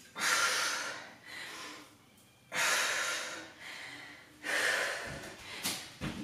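A woman's heavy, hard breathing during a dumbbell burpee interval: loud, forceful breaths about one every two seconds. Near the end come a couple of dull thuds as she drops to the mat.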